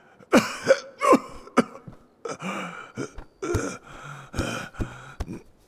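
A man gasping and groaning in short, strained breaths one after another, the laboured breathing of someone collapsed and too weak to rise.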